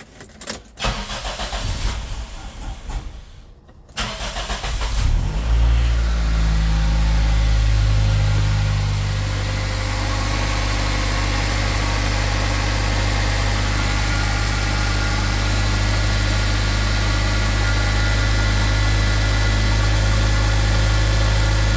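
Toyota Sera's 1.5-litre four-cylinder engine cranked by the starter for a few seconds, catching about four seconds in. It runs a little higher at first, then settles to a steady idle on its newly fitted custom idle control valve, running fine.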